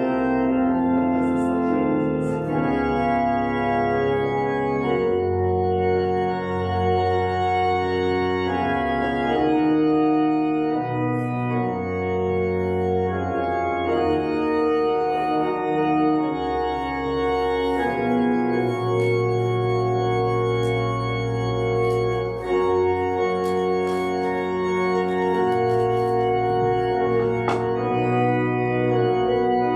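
Church pipe organ playing slow music in long held chords, the bass notes changing every second or two.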